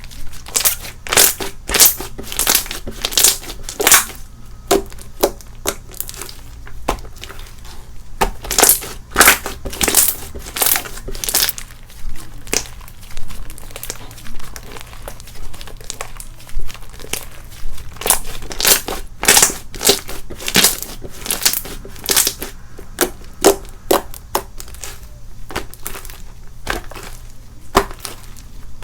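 Slime being squeezed, stretched and folded by hand, giving repeated crackling squishes and air-bubble pops, one every half second to a second or so.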